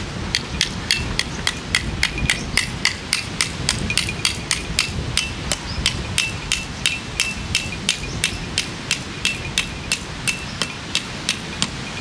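Hammer driving a 30 cm sand peg into the ground: a long run of even blows, about three a second, each with a short ring, over a steady low rushing in the background.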